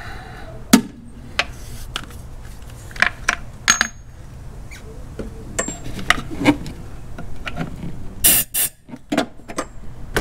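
Metal hand tools clinking and knocking in an engine bay as a spark plug is worked loose with a ratchet. About eight seconds in come two short blasts of compressed air, blowing debris out of the spark plug well.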